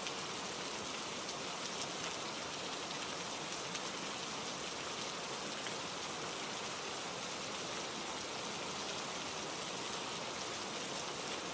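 Steady rainfall: an even hiss of rain falling on a surface, without thunder or other events.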